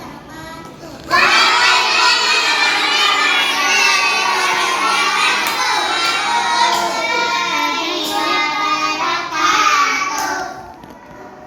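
Group of children singing loudly together, starting abruptly about a second in and dying away near the end.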